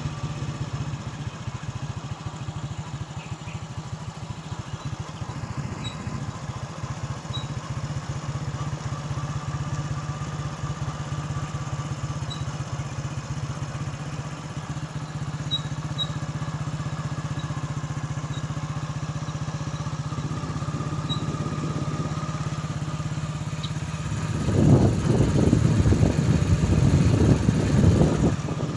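Motorbike engine running steadily while riding, a low steady hum with a faint higher whine. It grows louder and rougher for the last few seconds.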